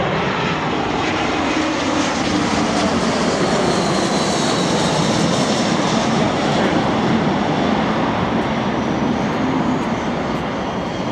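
Airbus A320-232 with its IAE V2500 turbofans passing low overhead on final approach, gear down. A loud, steady rush of engine noise with whining tones that shift in pitch as it goes over, easing slightly near the end as it flies away.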